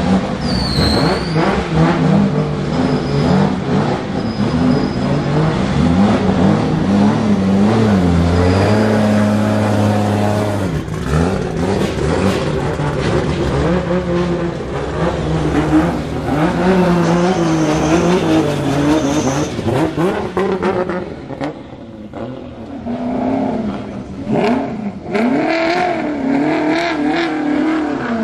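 Race-built drift car engines idling and revving hard, the pitch rising and falling in repeated throttle blips. First a widebody BMW M3 drift car, then, after a quieter dip about three-quarters through, a Ferrari V8-engined Toyota GT86 blipping its throttle.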